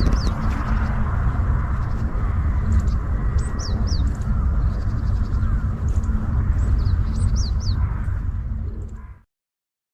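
Small birds calling in short, high, downward-sliding chirps, a few at a time, over a loud steady low rumble. All sound drops away about nine seconds in.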